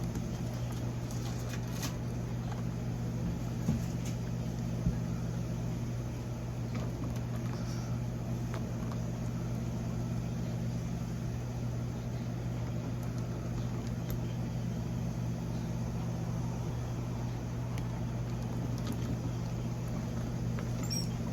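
Steady low machine hum, even throughout, with a couple of faint clicks about four and five seconds in.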